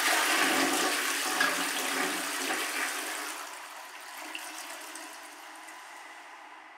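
Roca toilet flushing: a sudden rush of water swirling down the bowl, fading gradually to a quieter steady hiss.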